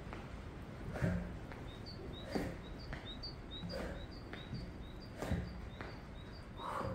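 Dull thuds of trainers stepping onto a wooden plyo box and down to a concrete floor, a step about every second and a half during weighted step-ups, with a small bird chirping steadily through most of it.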